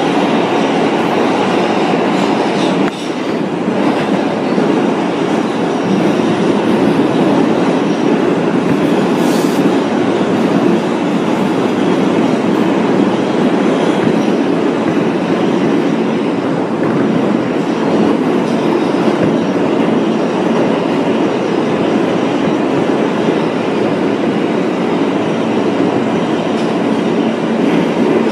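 R160 subway train running between stations, heard from inside the car: steady noise of wheels on rail and running gear, with a brief drop in level about three seconds in.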